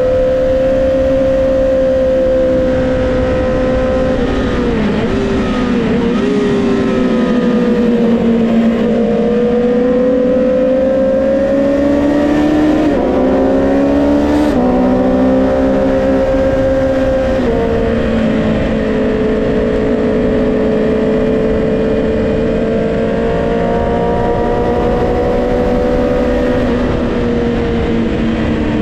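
Honda CBR650R inline-four engine pulling hard at racing speed: the pitch sags and wavers with braking and downshifts early on, then climbs and drops in steps with gear changes as it accelerates up through the gears. Constant wind rush over the mounted camera lies beneath it.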